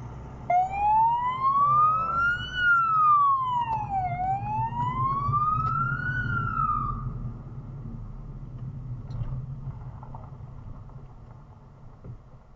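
Police car siren wailing, rising and falling slowly in pitch through about two cycles; it starts about half a second in and cuts off after about seven seconds. The car's low engine and tyre rumble runs underneath and fades as the car slows to a stop.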